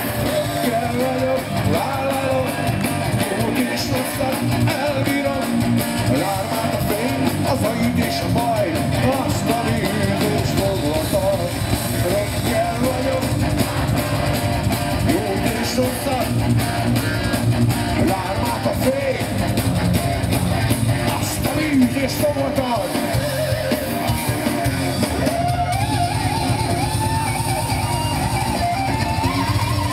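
Heavy metal band playing live: distorted electric guitars, bass and drum kit, with a male lead vocal over them, heard loud from the crowd.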